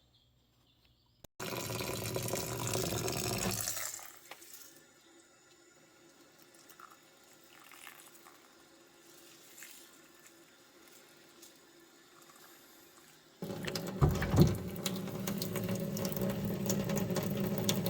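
Water running into a container of wheatgrass seed, in two spells: about two and a half seconds near the start, then about five seconds near the end.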